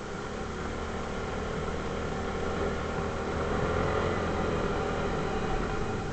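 ATV engine running steadily, its note rising a little about halfway through and then easing.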